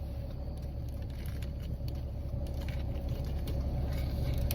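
Steady low rumble inside a car's cabin with the engine running, with a faint steady hum over it.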